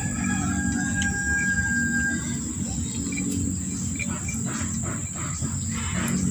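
Rural outdoor ambience: a steady, high insect drone with a held whistled bird note in the first two seconds, over a low rumble.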